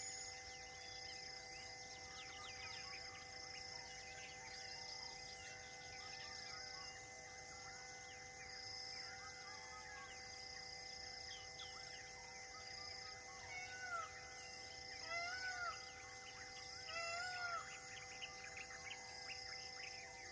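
Faint forest ambience: many birds chirping and calling, with a few louder, arching whistled calls about two-thirds of the way in. A high short note repeats about once a second over a steady faint hum.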